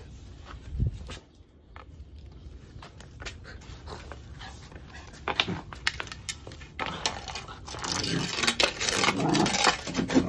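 Labradoodle puppy worrying a plastic scrub brush on stone paving: the brush scrapes and knocks on the stone amid the puppy's panting and growly play noises, which get busier and louder from about seven seconds in.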